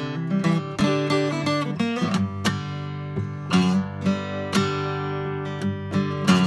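Acoustic guitar strumming chords in the instrumental opening of a song, with no singing yet.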